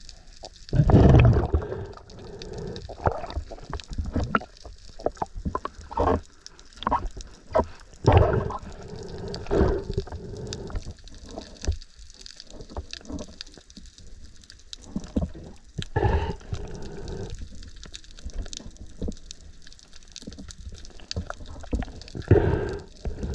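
Water sloshing and gurgling around a camera in the sea during a spearfishing dive, with louder rushes of water about a second in, near 8 s, near 16 s and near 22 s, and smaller swirls between them.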